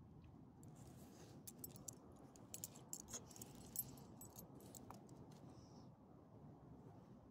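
Faint metallic jingling and clicking of a small dog's collar tags and leash clip, a cluster of light clinks over a few seconds.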